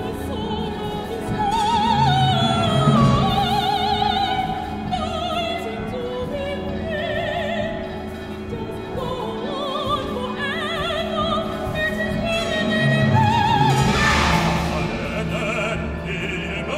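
Mezzo-soprano singing an operatic solo line with wide vibrato over a chamber orchestra's sustained accompaniment.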